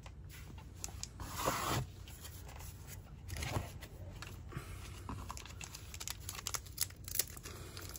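Foil booster-pack wrapper being handled, crinkled and torn open, in short rustling bursts; the loudest is about a second and a half in.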